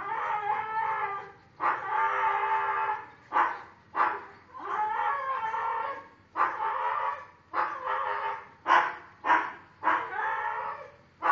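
Three-month-old Belgian Malinois puppy whining, a run of drawn-out, wavering high cries broken by short yelps.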